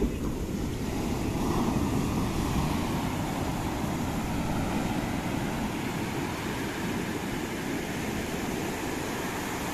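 Steady roar of ocean surf breaking on a sandy beach, with a low rumble of wind on the microphone.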